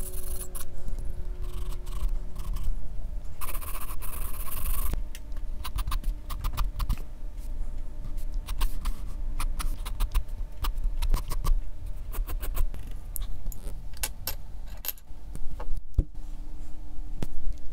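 A graphite pencil scratching briefly across paper, then scattered light clicks and rattles of the pencil and hand handling things at the drawing desk.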